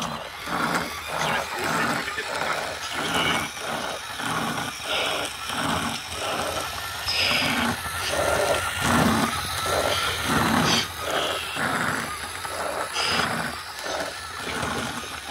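A person's voice making rough vocal sounds in short bursts, about two or three a second.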